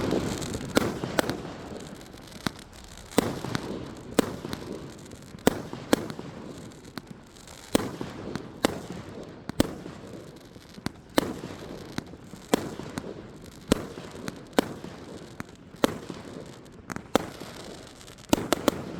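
A 19-shot consumer fireworks cake (Princess Warrior) firing its shots one after another, a sharp bang roughly every second, with crackling between the reports.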